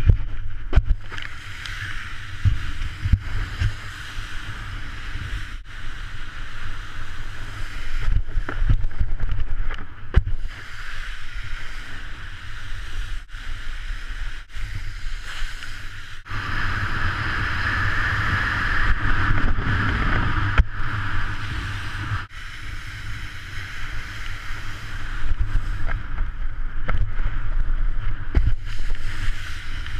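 Wakeboard skimming across lake water behind a cable tow, a steady hiss of spray over heavy wind rumble on the action camera's microphone. The hiss swells for several seconds around the middle, and the sound cuts out for an instant a few times.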